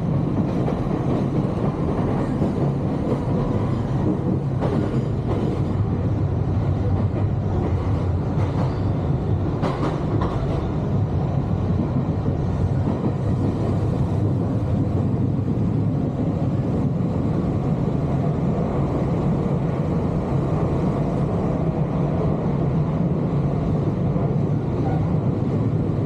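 Nankai Railway commuter train in motion, heard from inside the passenger car: a steady low rumble of wheels and running gear on the rails. There is a brief clatter just under ten seconds in.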